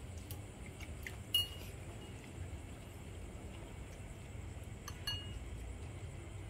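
A few light clinks over a steady low background rumble, the sharpest ringing one about a second and a half in.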